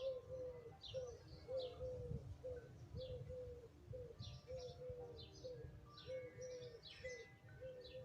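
Sparrows chirping in short, repeated clusters of high chirps, with a short low note repeating about twice a second underneath.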